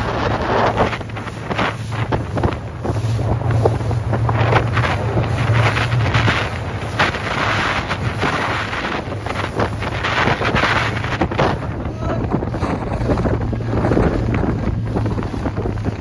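Motorboat running over choppy sea: a steady engine drone under heavy wind buffeting on the microphone, with irregular splashes and slaps as the hull bounces through the waves.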